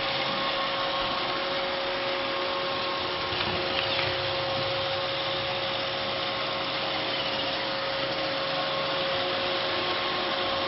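Roomba robot vacuum running steadily: an even motor and suction hum with a constant whine.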